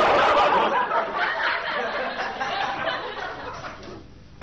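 Studio audience laughter from a sitcom laugh track, loud at first and slowly dying away over about four seconds.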